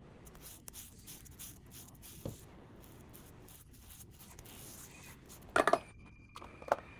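Light scratching and small clicks of handling work, with a cluster of louder sharp clicks a little after five seconds in and another near the end. A faint, steady high tone sounds through the last second and a half.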